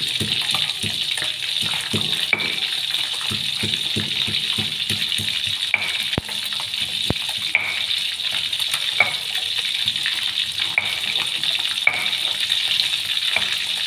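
Oil sizzling steadily as food fries in a pan, with a few light knocks at irregular intervals over the hiss.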